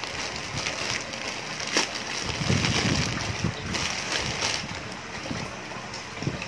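Plastic courier pouch and bubble wrap rustling and crinkling in irregular bursts as a parcel is torn open and its bubble-wrapped contents pulled out.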